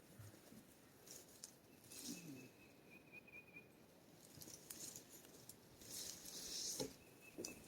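Near silence with faint scattered rustling and light clicks, and a longer rustling swell near the end.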